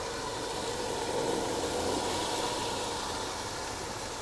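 Spice masala of tomatoes and yogurt frying in oil in a pot: a steady sizzling and bubbling hiss.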